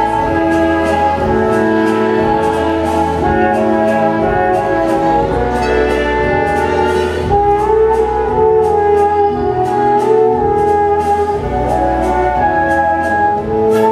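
Viennese waltz music played by an orchestra with prominent brass, over a steady repeating bass pattern.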